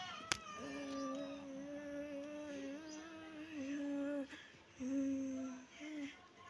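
A person humming a tune in long, held notes, with short breaks near the end. A single sharp click comes just after the start.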